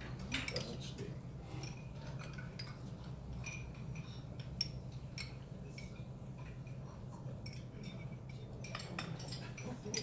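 Scattered light clinking of cutlery and dishes over a steady low hum.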